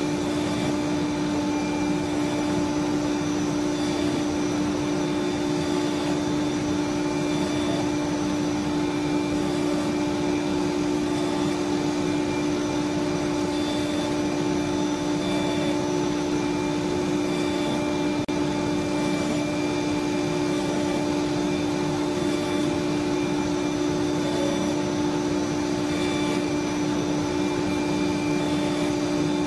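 CNC router cutting a melamine-faced MDF board: a steady machine whine from the spindle and its dust extraction, holding an even pitch and level throughout.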